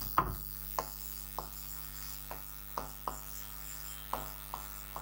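Pen tip tapping on an interactive whiteboard screen while a word is written: about ten light, irregular taps over a steady mains hum.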